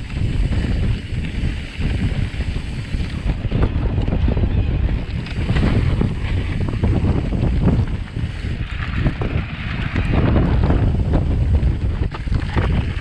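Wind buffeting the microphone of an electric mountain bike's camera at riding speed. Underneath it, the tyres rumble and the bike rattles with many small knocks over rough trail.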